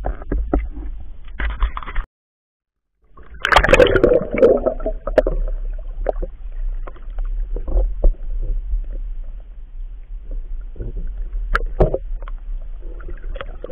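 Water splashing at the surface, a second-long gap, then a loud rush of water and bubbles as the camera goes under. After that comes the muffled underwater sound of a river heard through a camera housing: a low rumble with scattered clicks and crackles.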